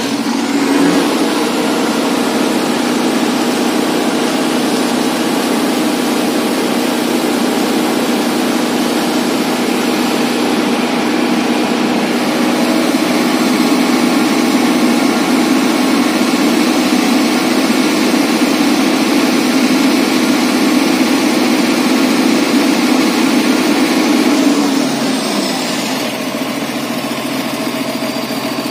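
Youngman concrete mixer truck's diesel engine revved up about a second in and held at steady high revs to drive the mixer drum, then dropping back toward idle near the end.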